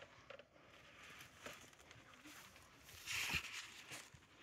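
Faint rustling and scuffing as people manhandle a bull elk carcass onto an ATV, with one louder scrape about three seconds in.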